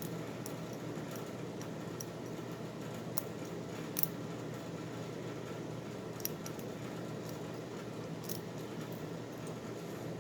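Faint metallic clicks and light scraping from a lock pick and tension wrench working the pin tumblers of an old Eagle Lock Co. padlock, with a few sharper clicks about four, six and eight seconds in, over a steady background hiss.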